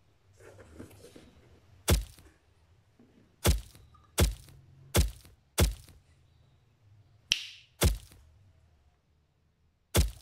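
A series of seven sharp, loud thuds at uneven intervals, with a short hissy swish about seven seconds in.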